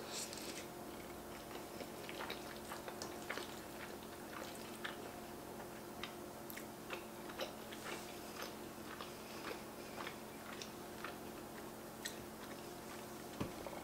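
Faint close-up chewing and wet mouth clicks of a person eating a forkful of beef stroganoff with soft egg noodles, over a steady faint hum.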